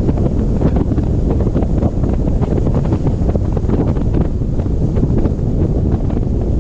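Strong storm wind buffeting the camera's microphone: a loud, steady low rumble with constant quick gusts.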